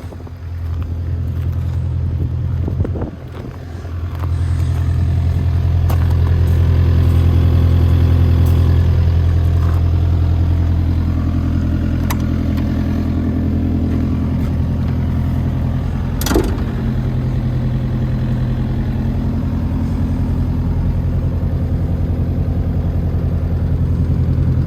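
Kubota KX057-4 mini excavator's diesel engine running, getting louder and steadier about four seconds in, with scattered clicks and clanks and one sharp knock about two-thirds of the way through.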